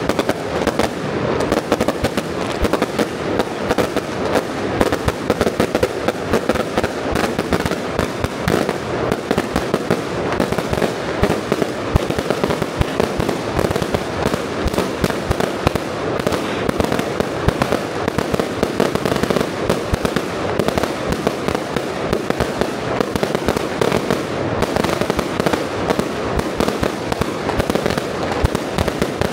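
A long, dense barrage of firecrackers and fireworks going off. It starts suddenly, and countless sharp bangs run together into one continuous crackling roar.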